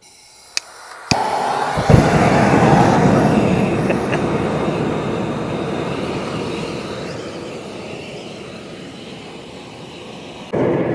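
Gas burners under a pop-pop boat engine's boiler being lit: a soft hiss and a couple of clicks, then the burners catch about a second in with a sudden loud rush of flame and keep burning with a steady rushing noise that slowly fades. A different, louder noise cuts in near the end.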